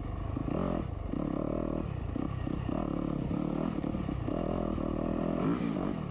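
Dirt bike engine running as the bike is ridden slowly, the revs rising and falling a couple of times.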